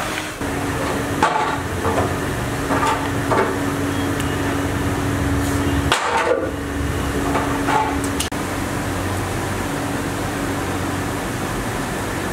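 A steady machine hum, with several sharp metal knocks and clanks in the first half as a bakery deck oven's door and handle bar are worked. After that come a few lighter knocks.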